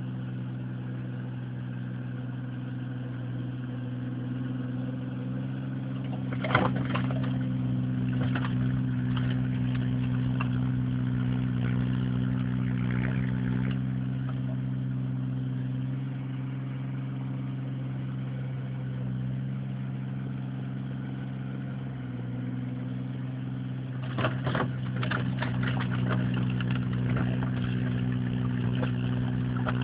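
Valpadana compact tractor's engine running steadily while driving a front-mounted snow blower through deep snow. Bursts of sharp clattering break in about six seconds in and again for the last few seconds.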